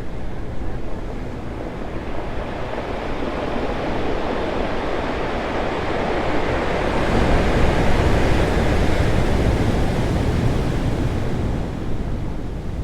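Ocean waves crashing on rocks, a continuous rush of surf that swells to a peak about halfway through and then eases off.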